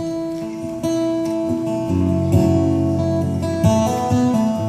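Acoustic guitar strumming sustained chords as an instrumental passage at the close of a country song, with a fresh strum every second or so letting each chord ring.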